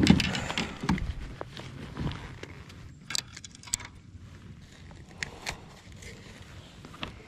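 Knocks and clicks of fishing gear handled in a plastic sit-on kayak: a heavy thump against the hull at the start, more knocks in the first couple of seconds, then a quick run of sharp clicks and scattered taps.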